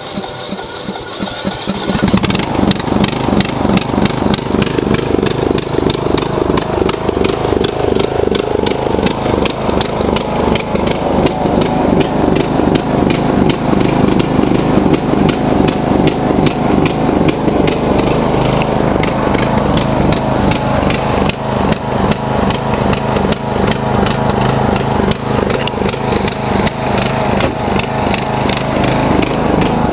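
Briggs and Stratton Intek 19.5 hp riding-mower engine catching about two seconds in, then running steadily, now starting after its valve clearances were reset.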